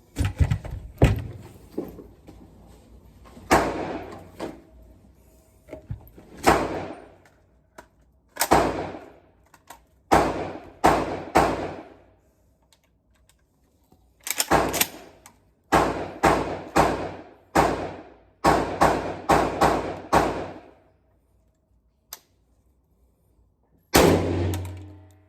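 Gunshots fired one after another at a shooting range, each with a long echoing tail. A few shots come spaced apart, then a quick string of about a dozen more than halfway through, then one more near the end.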